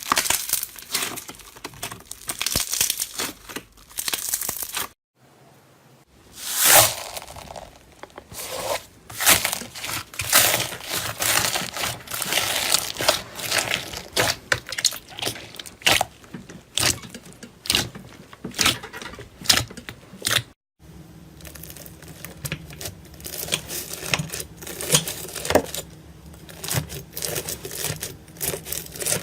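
Close-up crackling, tearing and crunching as slime is handled, in dense clusters of sharp crackles. Two brief silent gaps, about five seconds in and about twenty-one seconds in, split it into three stretches.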